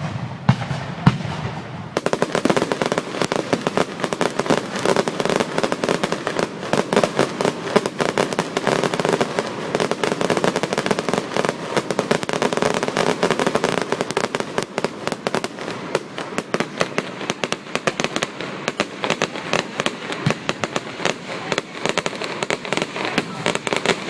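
Fireworks going off: a few loud bangs at first, then from about two seconds in a dense, continuous crackle of many rapid pops.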